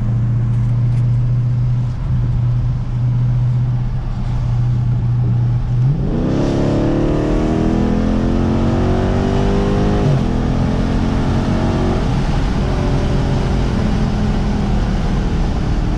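Dodge Challenger Scat Pack's 392 (6.4-litre) Hemi V8 exhaust, heard from inside the cabin. It first cruises with a steady low drone, then about six seconds in goes to full throttle, the revs climbing hard and falling back twice at upshifts.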